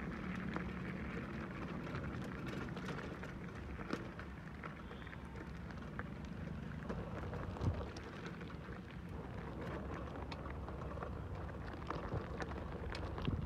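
Mountain bike rolling over loose gravel and broken stone chips: a steady low rumble with many small scattered crackles and clicks of stones under the tyres.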